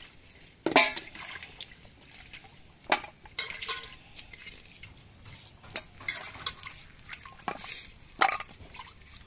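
Goat trotter pieces being washed by hand in a steel bowl of water: splashing and dripping, broken by several sharp clinks and knocks of bone and steel bowls against each other. The loudest knocks come about three-quarters of a second in and about a second before the end.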